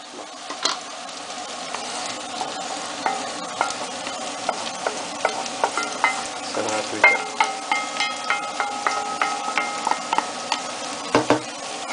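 Diced vegetables sizzling in hot oil in a frying pan with fried aubergine, scraped in from a second pan and stirred with a wooden spoon. The spoon knocks now and then against the pans.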